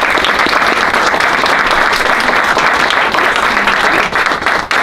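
An audience applauding steadily, with a few faint voices mixed in.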